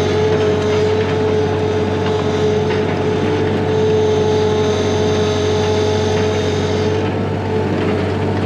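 An engine running steadily at an even speed, with a constant droning tone and no breaks.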